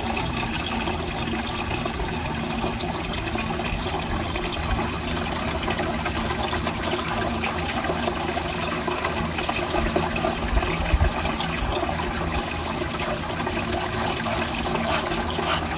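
Tiered garden water fountain running, water spilling from its top tier into the basin below in a steady splash.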